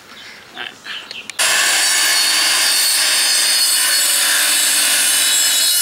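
Corded handheld circular saw with a finish blade cutting a sheet of wall paneling. It starts abruptly about a second and a half in and then runs loud and steady through the cut, after a few soft handling sounds.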